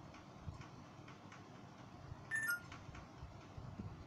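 Faint, regular ticking. About two and a half seconds in comes a short, louder two-note squeak, the second note lower.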